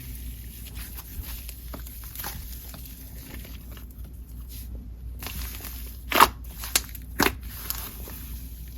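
Softened cloud cream slime being squished and stretched by hand, sizzling and crackling with fine air-bubble pops. About six to seven seconds in come a few louder, sharper pops.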